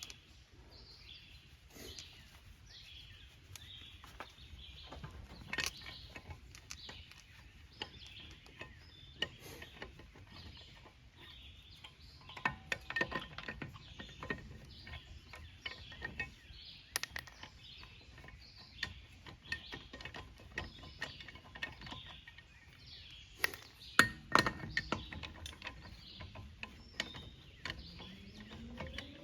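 Lug nuts being unscrewed from a car wheel with a hand lug wrench: scattered metal clicks and clinks as the wrench is fitted and turned and the nuts come off, with a louder flurry of clinks about 24 seconds in. A low rising hum comes in near the end.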